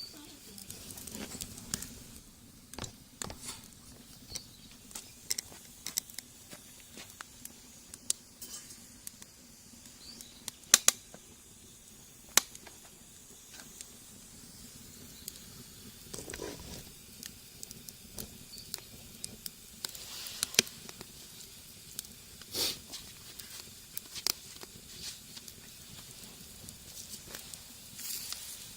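Wood fire burning in a rocket stove, crackling with irregular sharp pops over a soft steady hiss.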